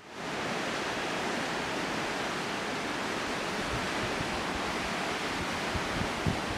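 Steady rushing of water from a mountain river or waterfall, an even hiss, with a couple of low wind thumps on the microphone near the end.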